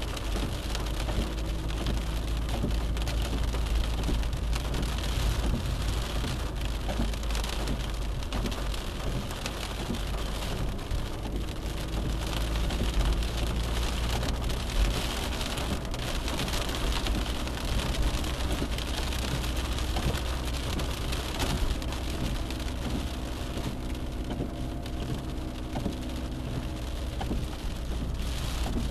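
Steady road and engine noise of a moving car heard from inside the cabin: a deep rumble under an even hiss, with a faint engine hum that drifts a little in pitch.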